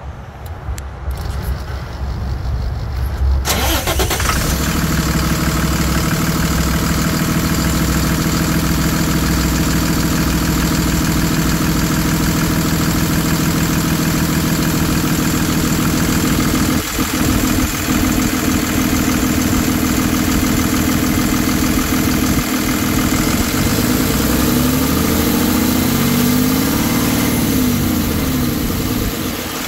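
Cummins 6.7-litre inline-six turbo diesel in a Freightliner M2 truck starting up: it cranks, catches about three and a half seconds in, then settles into a steady, loud idle. Near the end the idle pitch wavers up and down for a few seconds.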